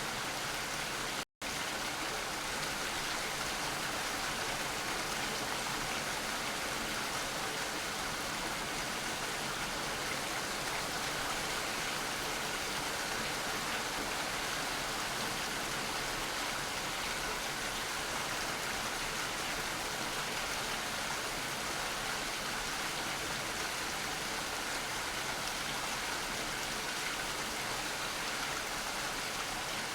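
Steady, even rain falling. A momentary dropout to silence about a second and a half in.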